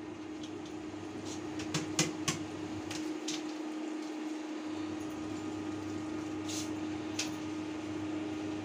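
Induction cooktop running at 2000 W, its fan humming steadily, while milk is poured from a container over grated carrots in a steel kadhai. A few light taps and clicks come from the container against the pan.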